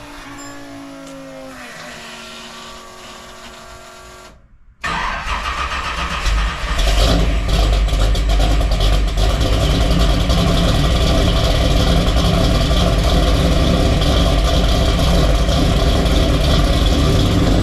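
Background music for the first few seconds, then a 1972 Oldsmobile Cutlass engine starts through its new custom exhaust, comes up in level about two seconds later and settles into a steady run. The exhaust note sounds smooth, not as loud.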